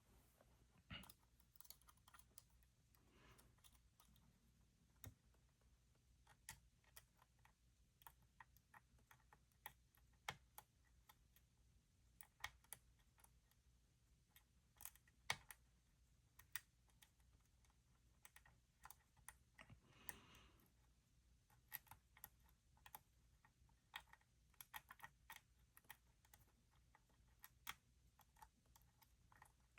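Faint, irregular clicks and ticks of a lock pick and tension wrench working the pins of a Yale YE3B five-pin padlock, a click every second or so, with a brief soft rustle about twenty seconds in.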